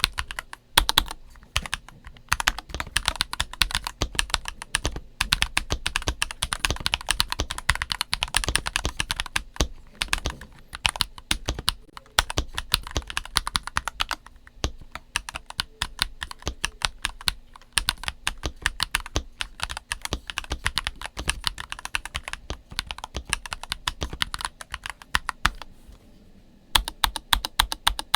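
Typing sound test on a stock NuPhy Halo96 wireless mechanical keyboard: a fast, continuous run of key clacks with brief pauses, easing into a short lull near the end before a last flurry of keystrokes.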